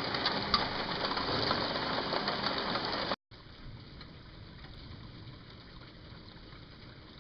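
Steady hiss of heavy rain during a thunderstorm. About three seconds in it cuts off abruptly, and a much quieter, even hiss follows.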